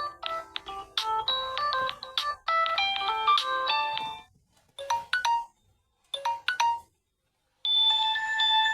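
Samsung Galaxy J5 Prime alarm tones played in turn: a melodic tone of quick electronic notes for about four seconds, two short snippets of a few notes each, a brief pause, then a different chiming tone starting near the end.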